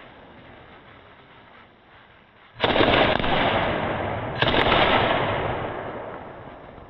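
Two aerial shells from a 60-shot sky-shot fireworks cake bursting about two seconds apart, each a sudden loud bang that fades away slowly, heard slowed down.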